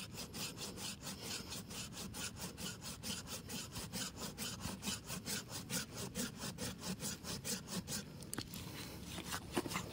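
Curved hand pruning saw cutting through a thick ileng-ileng stem, about 12 cm across, in fast, even back-and-forth strokes that bite on both the push and the pull. The strokes stop about eight seconds in, leaving a few light clicks.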